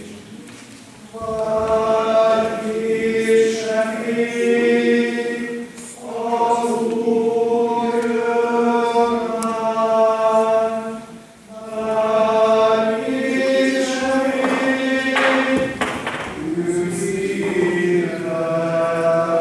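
Mixed choir singing a hymn in long held phrases, starting about a second in, with short breaks between phrases.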